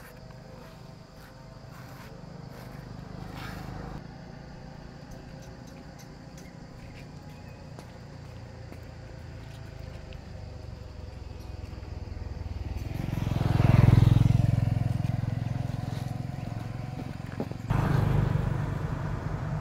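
Low steady road rumble, with a motor vehicle passing by that swells to its loudest about fourteen seconds in and then fades away.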